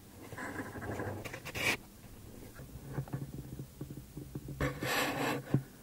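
Water swishing around a stand-up paddle blade: two strokes, one about a second in and one near the end, over a faint low hum.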